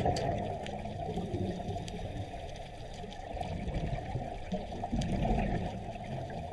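Flowing stream water heard underwater: a steady low rushing and gurgling with a few faint clicks.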